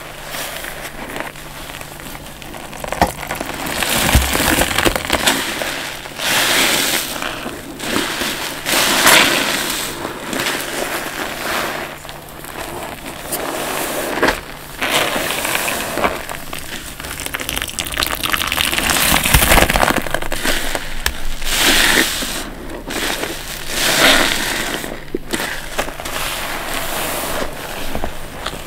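Wet sponges full of soapy cleaning solution squeezed by hand over and over, the suds squelching and crackling in surges about every one to two seconds.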